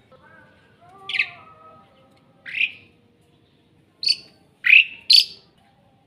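Caged Asian pied starling (jalak suren) giving five short, loud, harsh squawking calls, spaced out at first and coming closer together near the end.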